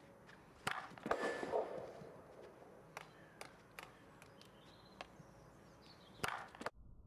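Field hockey stick striking a ball on artificial turf with backstick (tomahawk) hits: a series of sharp cracks, loudest in a cluster about a second in, then single hits spread over the next few seconds and two close together near the end.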